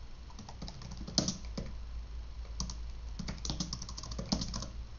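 Typing on a computer keyboard: irregular keystrokes, with a quicker run of keys in the second half.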